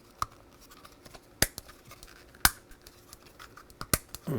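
The very stiff self-centering adjusters of an opened Craft KC3 PC joystick being forced between settings, each move ending in a sharp click, the loudest about one and a half and two and a half seconds in.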